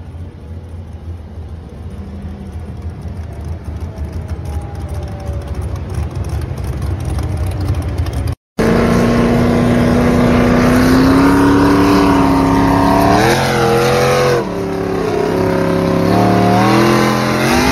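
Modified pulling tractor engine running at speed on the road. A steady drone for about eight seconds, then after a brief cut a much louder engine revving, its pitch climbing, dipping and stepping up again several times.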